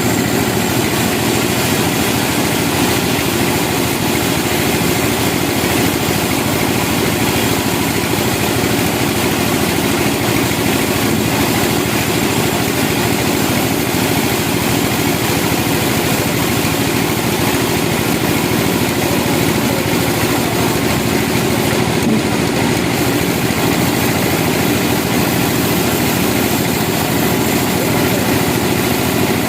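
Sawmill machinery running steadily, an even engine drone that does not change.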